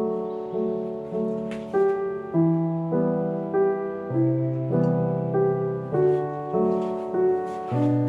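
Soft background piano music: a gentle melody of chords and notes changing about every half second, over a steady bass.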